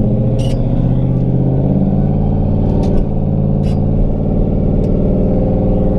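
Turbocharged Ford Mustang V8 running at a steady cruise, heard from inside the cabin, with no hard pull.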